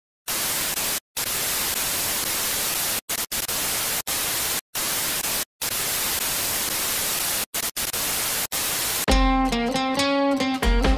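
Television static hiss, breaking off into short silences several times. About nine seconds in, music takes over.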